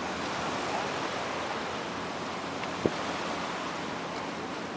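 Steady rushing noise of wind and sea water, with a single short knock about three seconds in.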